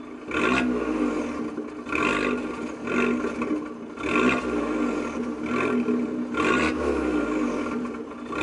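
Abarth 595's turbocharged 1.4-litre four-cylinder engine, recorded close to the exhaust tailpipe, blipped from idle in a series of short revs, roughly one a second. The engine is warm.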